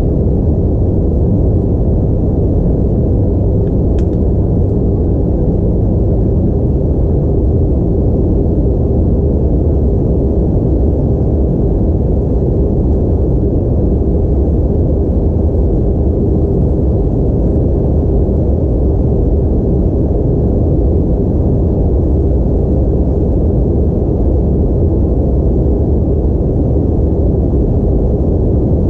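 Steady low rumble of airflow and engine drone heard inside the cabin of an Airbus A320-232 in flight, with a faint steady hum running through it, typical of cruise power or early descent.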